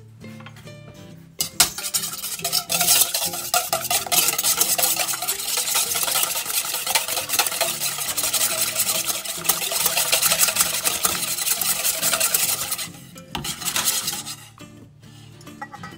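An egg being beaten fast with a plastic whisk in a stainless steel bowl: a rapid, steady scraping and rattling of the tines against the metal. It starts about a second and a half in and stops about three seconds before the end, with a few last strokes after. Faint background music underneath.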